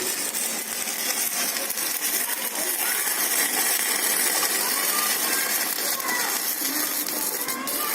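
Stick (MMA) welding arc crackling steadily from an inverter welding machine under test, holding the arc without cutting out.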